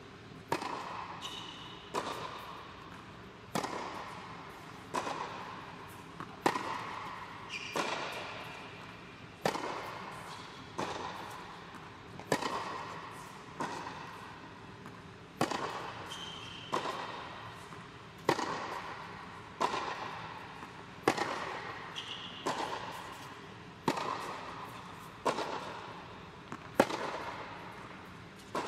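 Tennis ball hit back and forth with rackets in a steady baseline rally, a sharp pop about every second and a half. Each hit rings on in the echo of the indoor tennis hall.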